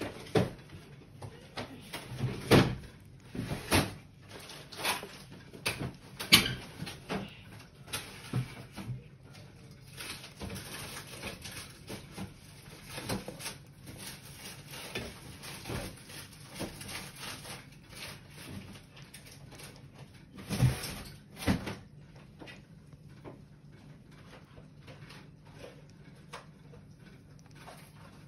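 A crab's pointed leg tips clicking and tapping on a wooden tabletop as it walks: irregular sharp taps, with a few louder knocks in the first eight seconds and two more about 21 seconds in, then sparser and fainter ticking.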